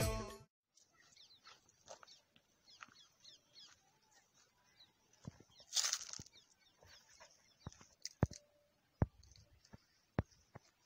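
Background music fades out, then small birds chirp faintly in scattered short calls. A brief rustle about six seconds in and a few sharp clicks toward the end are the loudest sounds.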